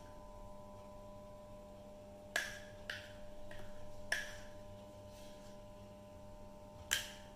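Four light clicks from small bowls and spoons being handled, spread a second or two apart, over a faint steady hum.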